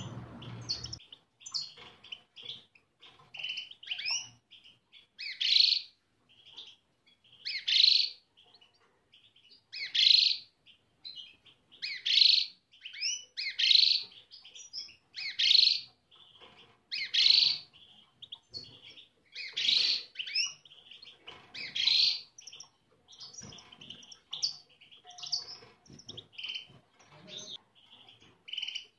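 European goldfinches (a caged breeding pair in breeding condition) calling and twittering: a loud, bright call about every two seconds, with softer chattering notes in between.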